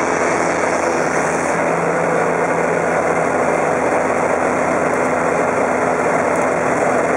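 American Champion Super Decathlon's four-cylinder Lycoming engine and propeller running steadily under power, heard from inside the cockpit.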